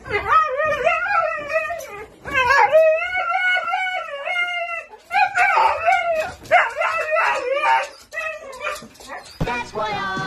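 Husky howling in several long, wavering calls that rise and fall in pitch, breaking into shorter yips toward the end.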